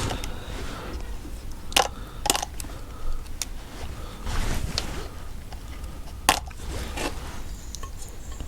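Metal motorcycle engine parts clicking and knocking as the engine is dismantled, with a few separate sharp metallic clicks and a scrape about halfway.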